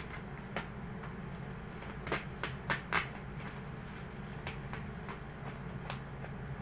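Scissors snipping through a parcel's plastic mailer wrapping: short sharp cuts, loudest as four quick snips about two seconds in, then lighter snips and rustling of the plastic. A steady low hum runs underneath.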